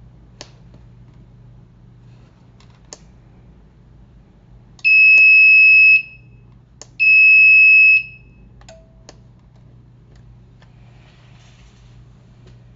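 Temperature controller's buzzer sounding two steady high beeps of about a second each, about a second apart. Soft clicks of its front-panel keys being pressed fall before, between and after the beeps.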